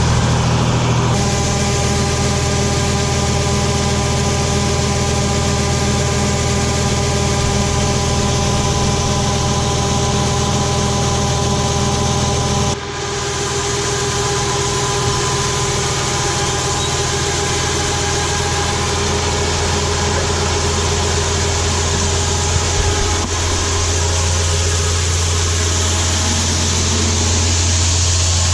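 Farm machinery engine running at a steady speed, a constant drone with several fixed whining tones over it. It breaks off abruptly about 13 seconds in and picks up again at a slightly different pitch.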